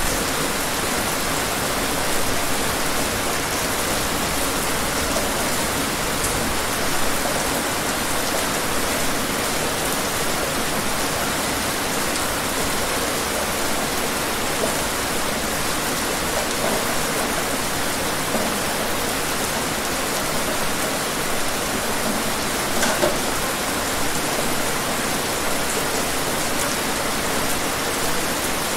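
Steady rain falling: an even hiss with a few louder drops here and there.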